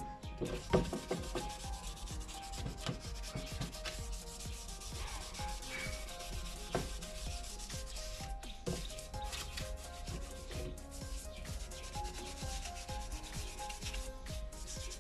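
Hand wet-sanding of a polycarbonate headlight lens with 500-grit abrasive on a hand-held sanding block: continuous scratchy rubbing strokes, with a few louder knocks about a second in.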